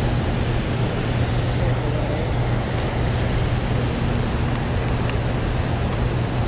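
Fast river water rushing through a whitewater stretch below a dam: a steady roar with a low, steady hum beneath it.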